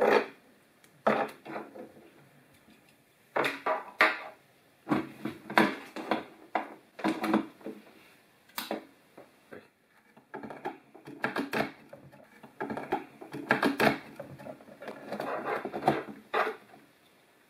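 Irregular clicks, knocks and rustles of hands handling wires, connectors and the metal housing of an opened fluorescent light fixture being converted to LED, with parts tapping on a wooden tabletop. There is a short lull about halfway through.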